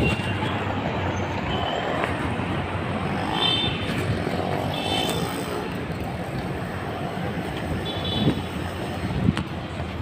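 Street traffic noise: a steady hum of passing vehicles on a city road, with a few brief high-pitched tones about three and a half, five and eight seconds in.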